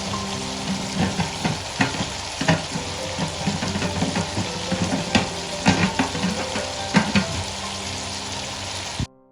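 Mutton frying and sizzling in a pot while a spoon stirs it, knocking against the pot a dozen or so times. The sizzling cuts off suddenly near the end.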